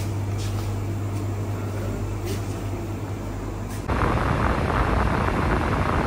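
Shop room tone: a steady low hum with a few faint clicks. About four seconds in, the sound cuts abruptly to a louder, rushing noise.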